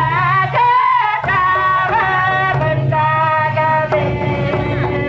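Women singing a Karma dance song in long, held, wavering notes, led by a voice on a microphone, with mandar drums playing beneath.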